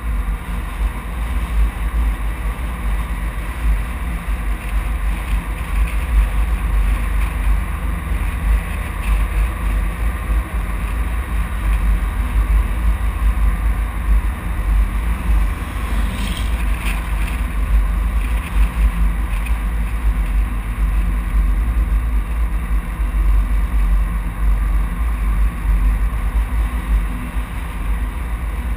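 Steady road and wind noise from a moving vehicle, with heavy low wind rumble on the exposed microphone. An oncoming vehicle passes about halfway through.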